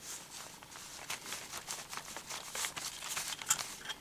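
Small irregular clicks, taps and rustles of hands handling the parts of a dismantled brass tap.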